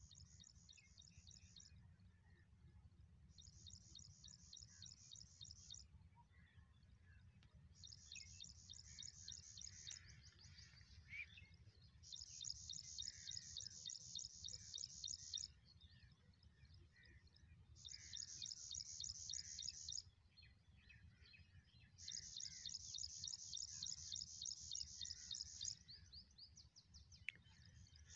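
Faint high-pitched bird-like trilling, a rapid pulsed trill in bouts of two to four seconds that repeat every couple of seconds, over a steady low rumble, with scattered fainter chirps between the bouts.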